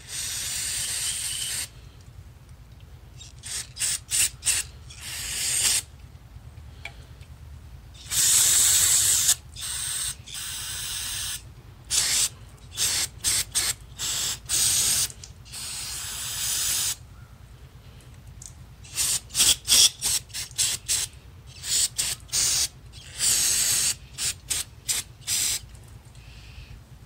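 Aerosol carb and choke cleaner spraying into the passages of a stripped two-stroke carburetor body to flush out old-fuel varnish. It comes as a few long hisses of a second or two and many short, quick squirts in runs.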